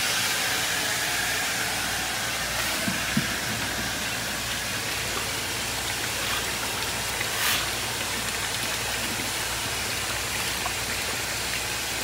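Red-hot steel quenched in a forge's water trough: a steady hiss of steam and rushing water, with water running into the trough and one brief knock about seven seconds in. The quench hardens the steel, leaving it brittle enough to crack.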